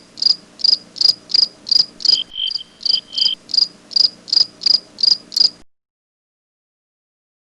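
Crickets chirping in high, evenly spaced pulses, about three chirps a second. A second, lower-pitched cricket chirps along for about a second partway through. The chirping cuts off suddenly about five and a half seconds in.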